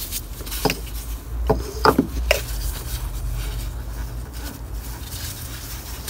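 Gloved hands fitting a plastic ignition coil pack into the engine: about four short knocks and clicks in the first two and a half seconds, then handling and rubbing over a low steady hum.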